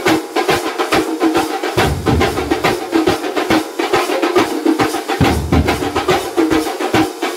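Thambolam drum troupe playing: many large frame drums and smaller drums beaten with sticks in a fast, dense rhythm. Deeper, heavier strikes come in for short spells, about two seconds in and again around five seconds in.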